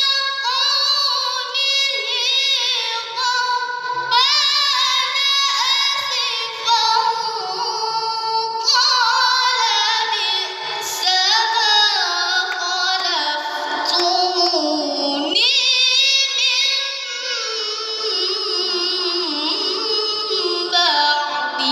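A high voice chanting Qur'an recitation in the melodic tilawah style: long held notes with rapid wavering ornaments, broken by short pauses for breath.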